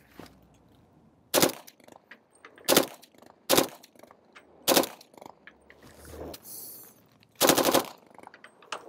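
M2 carbine firing .30 Carbine in full-auto bursts. There are four short bursts and then a longer burst near the end.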